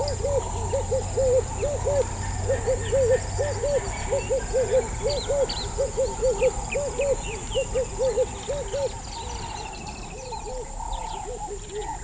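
Wetland wildlife chorus: a low hooting call repeated in quick runs of two or three notes, fading after about nine seconds, over a steady high insect whine and scattered small bird chirps.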